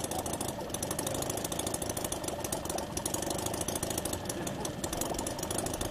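A.P.E. 25cc four-stroke flat-twin rotary-valve model engine running at a steady speed on a test bench, turning a 17x8 propeller, with a rapid even beat. The operator says it is running rich in the warmer air.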